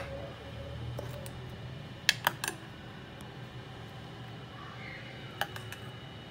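A serving spoon clinking against a glass dish and a ceramic bowl while dishing out a yogurt dessert. There is a clink at the start, a quick run of three about two seconds in, and one more near the end, over a low steady hum.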